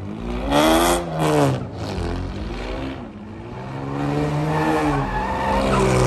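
Chevrolet Camaro engine revving hard during a drift, its pitch rising and falling. Two sharp revs come about half a second and a second and a half in, with the tyres squealing against the asphalt. From about three seconds the engine climbs again into a longer sustained rev.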